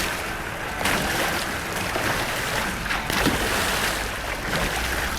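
Whitewater rushing and churning through a river play hole, with a few louder splashes.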